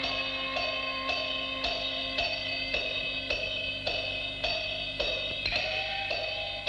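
Peking opera percussion: gongs and cymbals struck in a steady beat of about two strokes a second, each stroke ringing on. A low gong tone rings and fades over the first few seconds, and a higher gong stroke about five and a half seconds in rises slightly in pitch.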